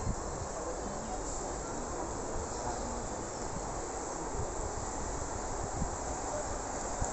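Steady high-pitched insect drone, continuous throughout, with a low uneven rumble underneath.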